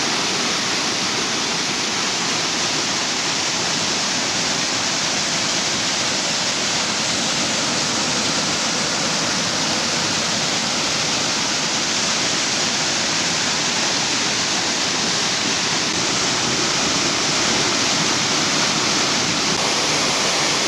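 Rain-swollen torrent of water rushing and falling, a loud steady rush that does not change.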